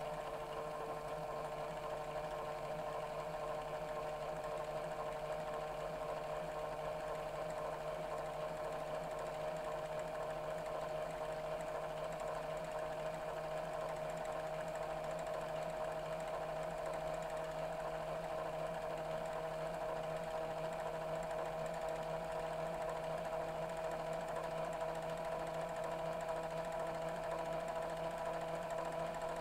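Panasonic NV-VX3A VHS-C camcorder rewinding a tape: a steady motor-and-reel whine whose pitch slowly rises and which grows slightly louder.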